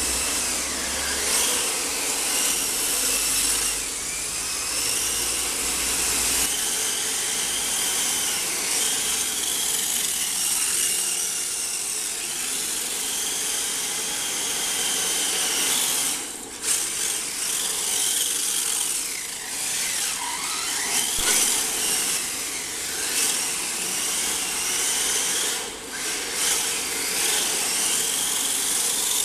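Electric motors and gears of radio-controlled model cars whining at high pitch, rising and falling again and again as the cars speed up and slow down, with tyre noise on bare concrete.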